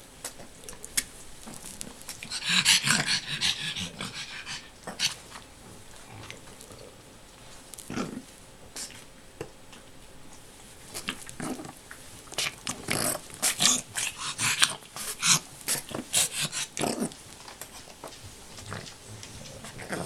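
A dog roughhousing with a blanket in its dog bed: bursts of fabric rustling and scuffling with dog noises, loudest about two seconds in and again through the middle to late part.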